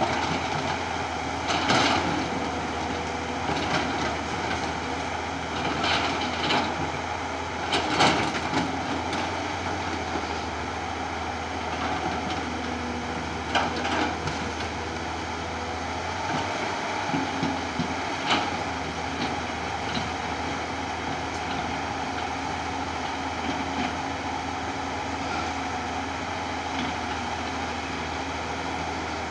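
Tata Hitachi hydraulic excavator's diesel engine running steadily as it digs into a pile of broken rock, with several loud knocks and clatters of rock against the bucket, most of them in the first eight seconds.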